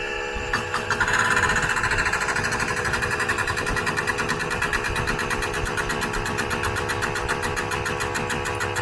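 Air-over-hydraulic foot pump driving a small hydraulic press, cycling rapidly with a fast, even mechanical chatter that starts about a second in as it is primed and pumps up pressure.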